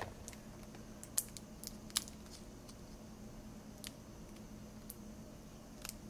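Faint small clicks and taps of fingers handling the LCD video cable's connector against the laptop screen panel's circuit board while fitting it into its socket, the two sharpest about one and two seconds in. A steady low hum runs underneath.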